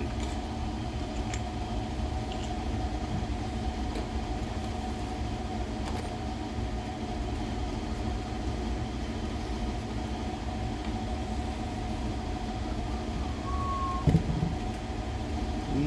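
A steady mechanical hum runs without change, with a few faint clicks and a single knock near the end as small parts are handled.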